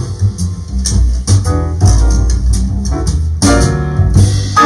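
Music: plucked guitar notes, each struck sharply and left to ring, over a deep bass line.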